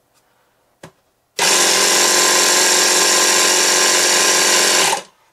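The Floë 636 drain-down unit's small 12 V air compressor starts abruptly after a faint click, runs steadily for about three and a half seconds, and cuts off suddenly. It is running on a jump-starter pack's 12 V output, which powers it with no problem.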